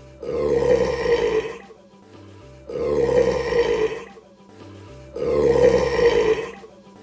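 A man burping three times, each burp long and loud, lasting about a second and a half, about two and a half seconds apart.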